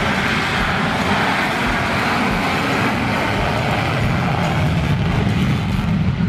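F-16 fighter jet's engine at full power on its take-off run, afterburner lit: a loud, steady rush of jet noise.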